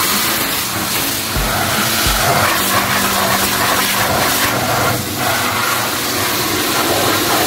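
Loud, steady hiss of a spray gun blasting the car's interior seats during cleaning.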